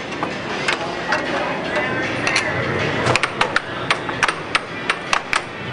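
Air hockey puck and mallets clacking in play: irregular sharp knocks, sparse at first and coming several a second from about three seconds in. A din of voices carries on underneath.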